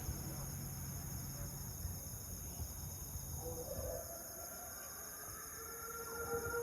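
Crickets trilling steadily at night. About four seconds in, a steady mid-pitched tone enters faintly and grows louder toward the end.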